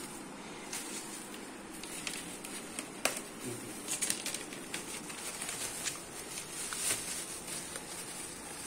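Thin plastic bag rustling and crinkling as bitter gourds are pulled out of it and tipped into a plastic colander, with scattered sharp crackles throughout.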